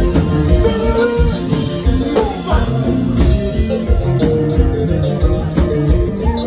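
Live band playing loud, with electric bass guitar, drums and a singer at the microphone.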